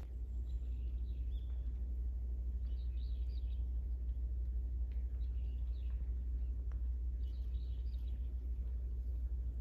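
Birds chirping in short calls every second or two over a steady low rumble.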